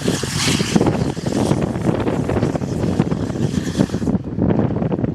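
A Fendt 724 tractor and New Holland BB930A big square baler running steadily in the field, heard under heavy wind buffeting on the microphone.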